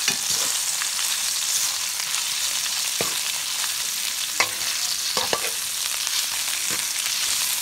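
Sliced beef and chopped garlic sizzling in hot oil in a steel wok, a steady hiss. A metal wok spatula scrapes and taps against the pan several times as it stirs the meat.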